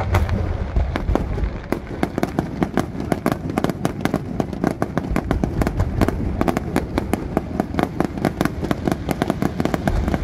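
Aerial fireworks display going off in a fast, continuous barrage of sharp bangs and crackle, several reports a second, with a loud bang right at the start.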